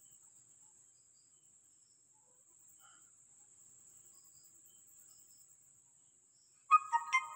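A faint, steady, high-pitched cricket trill. Near the end come three sharp clicks in quick succession, each with a brief ringing tone.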